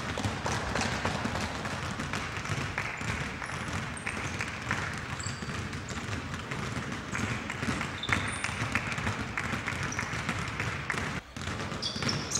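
Several basketballs being dribbled at once, a dense, continuous patter of bounces on a gym floor, with a few short high sneaker squeaks.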